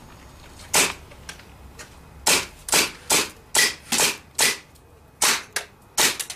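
BB gun firing about nine shots: one sharp crack about a second in, then a rapid run of shots roughly two a second.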